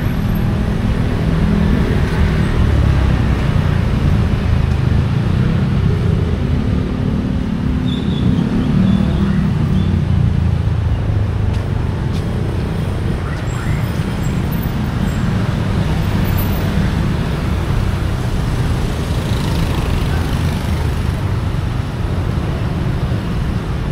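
Street traffic: vehicle engines running close by, a steady low rumble that is strongest in the first half.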